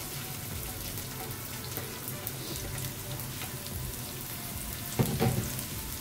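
Chopped onions frying in hot oil in a frying pan: a steady sizzling hiss with light crackles. About five seconds in there is one short knock.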